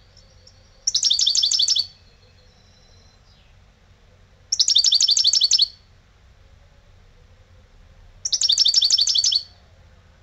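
Caged European goldfinch singing: three loud bursts of rapid, repeated high twittering notes, each lasting about a second and coming a few seconds apart, with soft thin whistles between the first two.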